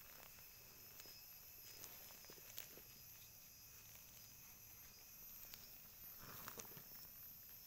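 Near silence: a faint, steady, high hum in the background, with a handful of soft, scattered crackles of footsteps on dry pine needles and twigs.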